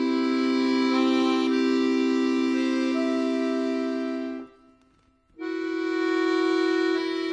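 Background accordion music: held chords with a slowly moving melody note. It breaks off for about a second a little past halfway, then comes back in on a new chord.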